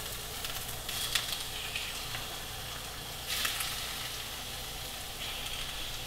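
Raw chicken breasts sizzling in hot oil in a stainless steel frying pan as the pieces are laid in, a steady hiss with louder crackling flare-ups about a second in and again about three seconds in.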